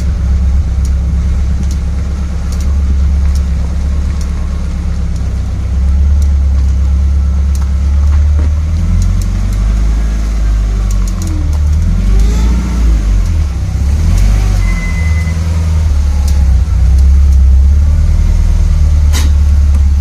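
Subaru car running with a deep steady rumble and a repeated light clicking over it, a click a little more often than once a second at first, then irregular, with one sharper click near the end.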